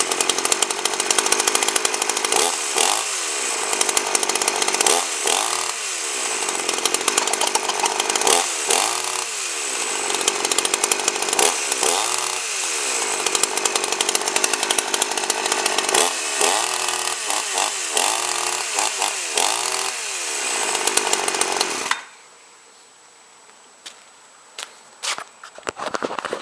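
A 52cc GIO two-stroke chainsaw running and being revved again and again, its engine note rising and falling every two to three seconds, until the engine cuts off suddenly near the end. It runs well but does not rev out fully at the top end, which the owner thinks may be from a fuel mix that is a bit rich and a carburettor that wants leaning out.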